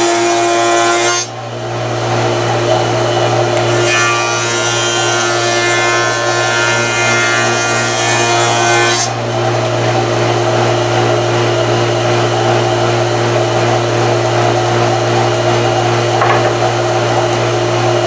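1.5-horsepower Grizzly spindle shaper running with a steady hum as boards are fed past its cutter, which cuts a profile along the edge. The cutting noise stops about a second in, starts again about four seconds in and ends about nine seconds in, leaving the motor running freely.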